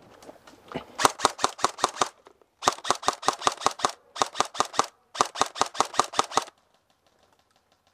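Airsoft gun firing close by in four quick strings of shots, about seven a second, before stopping near the end.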